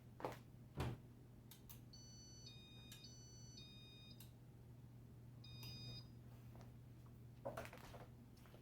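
Two clicks, then the Casablanca fan's InteliTouch control sounding a short run of electronic beeps that step between a few pitches, and one more brief beep a couple of seconds later, as the fan is switched to reverse. A low steady hum runs underneath, and there is a soft knock near the end.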